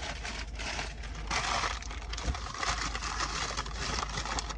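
Paper takeout bag and food wrapping rustling and crinkling as it is opened and handled.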